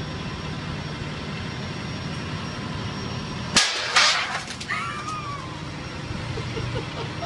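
Steady background hum, broken about three and a half seconds in by two loud sharp cracks half a second apart, then a short sliding cry.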